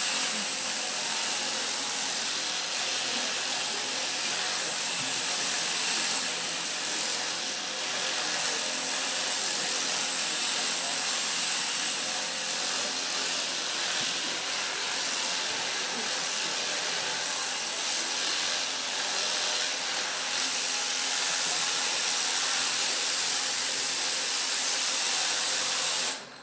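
Electric sheep-shearing handpiece running steadily as it shears the fleece off a ewe, then switching off abruptly near the end.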